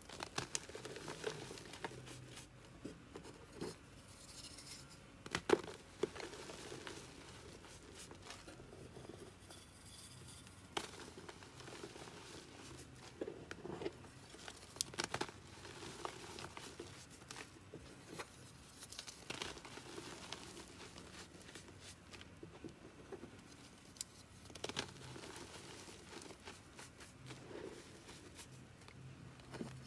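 Blocks of gym chalk crushed and crumbled between the fingers into loose powder: soft, dry crunching and crumbling broken by irregular sharp snaps, the loudest about five seconds in.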